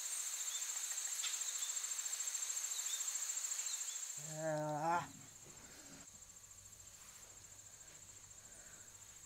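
Steady, high-pitched insect chirping with a fast pulsing trill, louder for the first four seconds and fainter afterwards. A short rising voice-like sound comes about four and a half seconds in.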